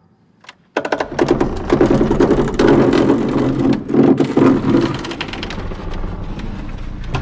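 A sudden loud burst of rapid rattling and knocking with a low rumble beneath, starting about a second in. It is loudest for the next few seconds, then carries on more steadily.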